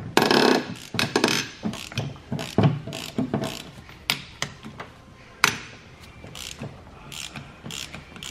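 Hand ratchet wrench clicking in repeated strokes as it backs out the long through-bolts that hold a Mazda 13B rotary engine's housings together, with a few louder sharp clacks of metal.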